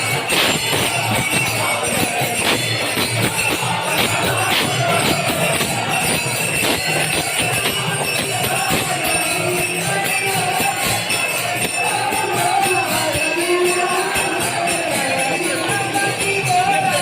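Background music with busy, shimmering high-pitched percussion throughout; a wavering melody line comes in around the middle.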